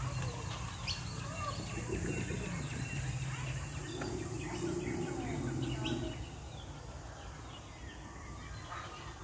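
Birds chirping against a steady low outdoor background, with indistinct voices.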